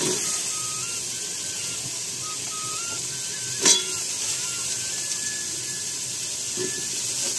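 Steady sizzling hiss of spices frying in a pot on a wood-fired clay stove, with one sharp click about halfway through and a soft knock near the end.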